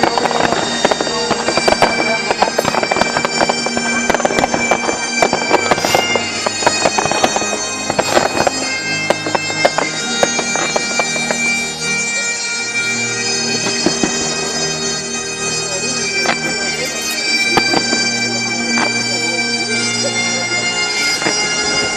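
Bagpipe music, a melody over steady drones, with fireworks bangs and crackles over it, thickest in the first half.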